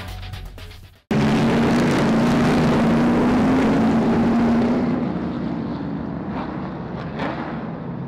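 Music fading out, then after a short gap about a second in, a pack of super stock race cars' engines running loud as the field comes around the oval, easing to a lower level after about five seconds.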